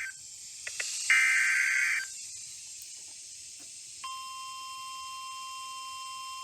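Emergency Alert System broadcast: a shrill digital SAME header data burst lasting about a second, starting about a second in, then after a pause the steady NOAA Weather Radio 1050 Hz warning alarm tone begins near four seconds in and holds, over faint radio hiss. The sequence marks the start of a new warning broadcast, here a severe thunderstorm warning.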